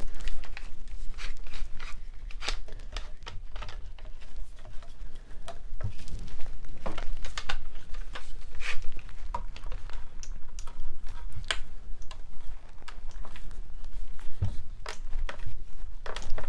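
One-handed bar clamps, set up as spreader clamps across a wooden chair frame, being placed and pumped: an irregular run of sharp clicks and clacks from the trigger handles ratcheting and the clamps knocking against the wood.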